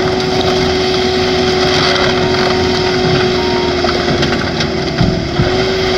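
High Speed Crusher portable car crusher running, its engine and hydraulics giving a steady whine over a dense mechanical din. About five seconds in the whine sags briefly and recovers, with a couple of knocks of metal as it works the car.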